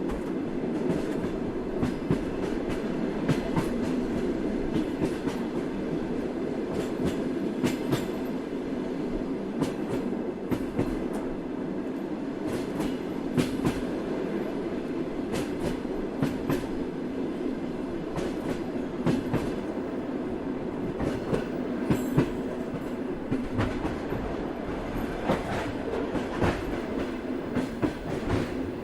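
A train in motion: the cars roll along the track with a steady rumble, and the wheels clack irregularly over the rail joints.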